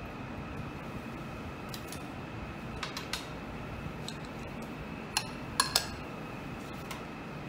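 Small glass sample vials clicking and clinking as they are handled and set down on a lab bench: a scatter of short sharp clinks, the loudest two close together more than halfway through. Under them runs a steady hum with two faint high tones.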